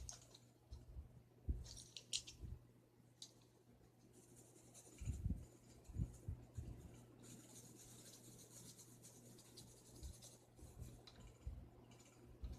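Faint scratching of a drawing tool on paper, shading in short strokes with a longer stretch of steady rubbing about seven seconds in. A few soft low thumps come around five to six seconds in.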